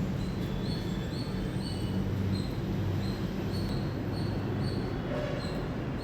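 Indian palm squirrel chirping: a run of short, high-pitched notes, about two to three a second, all on the same pitch. A steady low rumble of background noise runs underneath.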